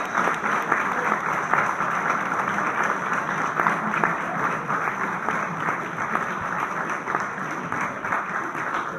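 Audience applauding with many hands clapping, easing off gradually toward the end.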